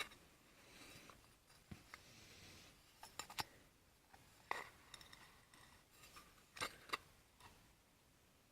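A few light clicks and clinks of metal parts being handled while a molded piston is twisted into a 4L60E transmission input drum, in short pairs about three, four and a half and seven seconds in, with near silence between.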